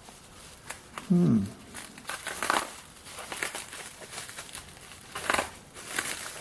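Plastic packaging crinkling and rustling while a jackhammer chisel is unwrapped, with a short vocal exclamation falling in pitch about a second in.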